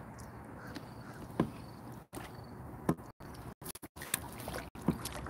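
A few sharp knocks and taps of rod, reel and kayak being handled while a hooked white perch is reeled in, over low steady background noise. The sound cuts out completely for moments several times, dropouts of a live stream on a poor connection.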